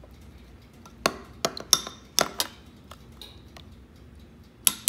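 Metal spoon clinking against a glass beaker while stirring instant coffee into brewed tea: a quick run of about five sharp clinks about a second in, then one more near the end.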